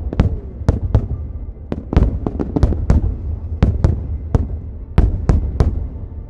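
Aerial fireworks bursting in rapid succession: a string of sharp cracks, several a second, over deep booms. The bursts stop near the end.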